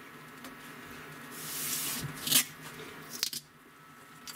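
Crepe masking tape being pulled off its roll: a hissing rip that swells about a second in and ends in a sharp peak, followed by a few quick crackles.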